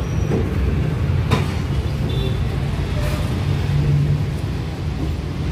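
Train wheels running over a steel girder railway bridge: a loud, steady low rumble with a few sharp metallic clanks, heard from an open coach doorway.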